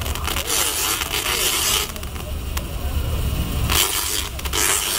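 Tesla coil discharges: the harsh crackling buzz of electric arcs fired in bursts that start and stop abruptly, one long burst of nearly two seconds, then shorter bursts near the end, over a steady low hum.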